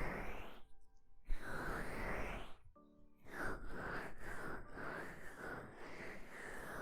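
Oily hands massaging the ears of a binaural ASMR microphone: two slick rubbing swells, then a run of quicker rubbing strokes from about three seconds in.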